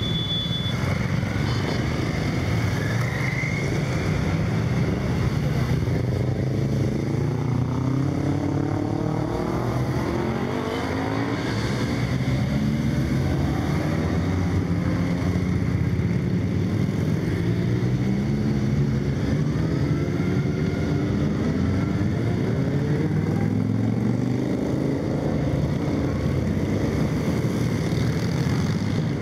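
A stream of motorcycles passing one after another, each engine revving up as the bike accelerates away, so that rising exhaust notes overlap continuously.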